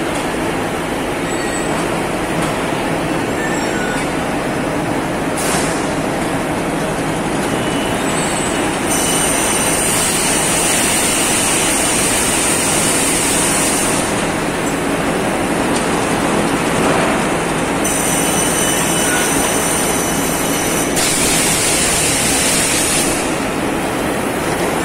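Gypsum board production line running: roller conveyors and their drive motors give a steady, loud mechanical rumble, with a high-pitched whine that comes and goes several times.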